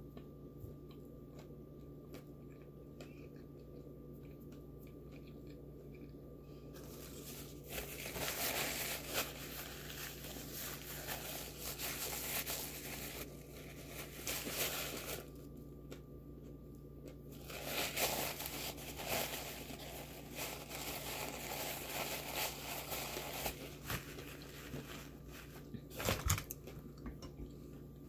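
Close-miked eating of a McDonald's Big Mac: crunching and crinkling in two long stretches with a short quiet gap between, and a few sharp clicks near the end.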